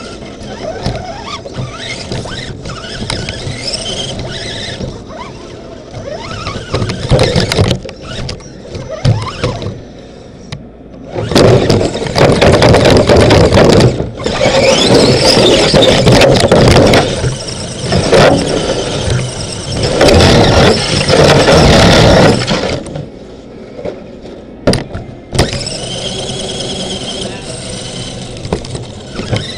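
RC crawler's electric motor and geared drivetrain whining, the pitch rising and falling as the throttle changes, with clicks and knocks as the truck crawls. It gets much louder for several seconds at a time around the middle.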